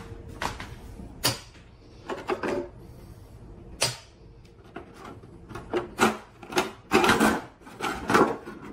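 Hands working inside an opened sheet-metal battery case: scattered sharp clicks and knocks, growing busier over the last few seconds as the black insulating sheet over the LiFePO4 cells is lifted off.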